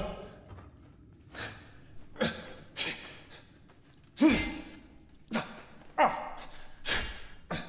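A man's sharp exhales and grunts of effort, about seven in a row roughly a second apart, one a short falling voiced grunt near the middle: the breathing of a man fighting.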